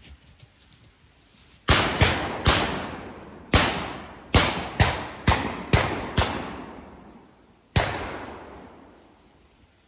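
Shotguns firing at ducks on a drive: about ten shots in quick succession over some six seconds, each echoing away for a second or more, some following each other within half a second.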